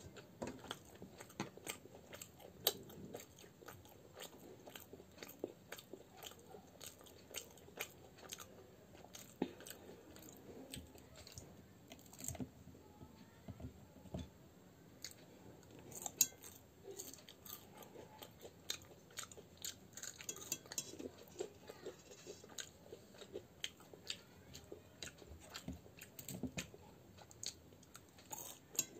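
A person chewing and biting into crisp fried Indian snacks (kachori and jalebi) close to the microphone: irregular wet clicks and crunches, with a couple of louder bites about three seconds in and near the middle.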